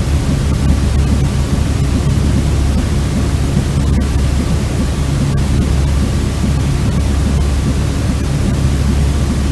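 Baby-sleep white noise: a steady, unchanging rushing hiss, heavy in the deep rumble, with a faint steady hum under it.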